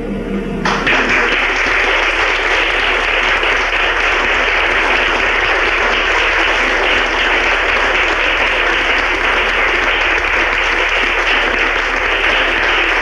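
Audience applause, loud and steady, breaking out about a second in as a final held sung note ends.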